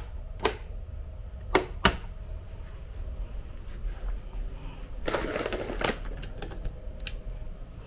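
Sharp clicks of wall-panel light switches being pressed to turn on the room lights, four in the first two seconds and another near the end, with a brief rustle about five seconds in.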